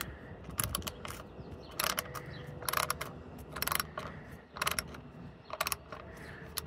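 Socket ratchet wrench with a 10 mm socket loosening a bolt: a short run of rapid pawl clicks on each back-stroke, about one run a second.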